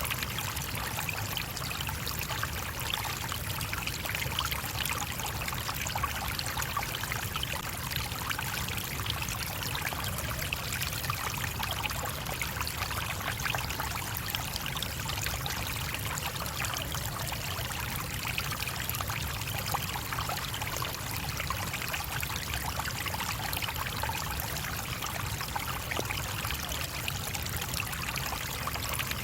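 Small stream running over stones: a steady babble and trickle of flowing water, even throughout.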